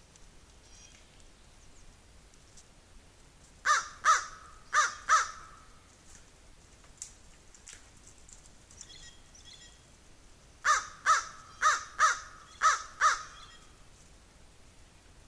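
Crow cawing in two runs of short, harsh calls: four caws a few seconds in, then six more after a pause of about five seconds.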